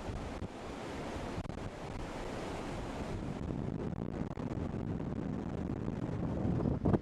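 Storm wind blowing hard and steadily, buffeting the microphone.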